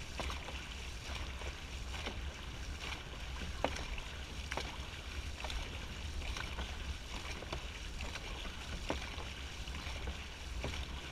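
Dragon boat paddles catching and pulling through the water in a steady rhythm, about one stroke every three-quarters of a second, over a constant low rumble.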